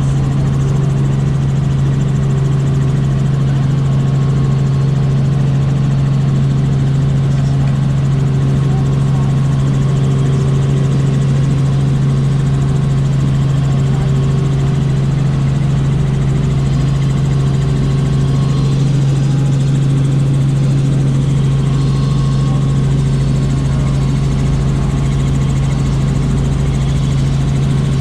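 Helicopter engine and rotor drone heard from inside the passenger cabin: a loud, steady hum with one strong low tone that does not change.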